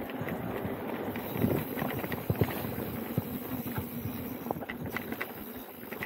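Specialized Turbo Levo electric mountain bike riding along a dirt singletrack: tyres rolling over dirt with frequent clicks, rattles and knocks as the bike goes over bumps, and wind on the microphone.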